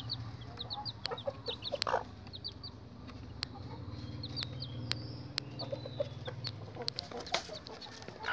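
Bangkok game-fowl chicks peeping, many short high chirps in quick succession, with a few lower clucks from the hen among them.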